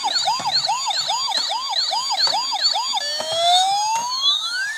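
Electronic police-style siren in a fast yelp, sweeping up and down about three times a second, then switching about three seconds in to a slower rising wail; it cuts off suddenly at the end.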